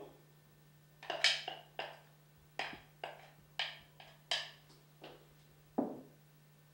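About a dozen sharp taps and scrapes, two or three a second, each dying away quickly, as chopped cheese is knocked out of a clay bowl into a glass dish with a wooden spoon.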